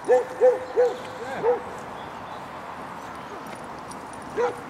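A hound barking: four short barks in quick succession at the start, then one more near the end.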